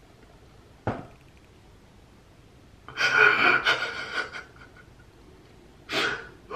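A man's breathy vocal reactions: a sharp intake of breath about a second in, then a longer, louder whimpering, gasping cry, and another sharp breath near the end.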